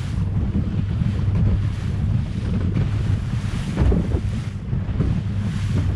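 Strong wind buffeting the microphone at sea: a steady, heavy low rumble with the wash of waves.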